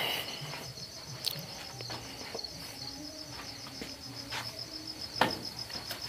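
Crickets chirping in a steady, rapid pulsing trill, with a few faint clicks and one sharper click a little after five seconds.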